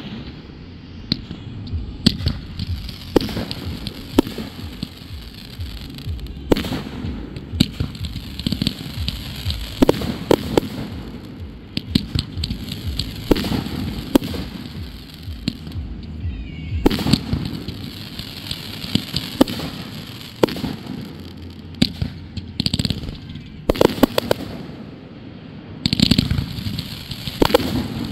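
Consumer fireworks going off: an irregular run of sharp bangs from launches and aerial bursts, with crackling between them, growing denser in two stretches in the second half.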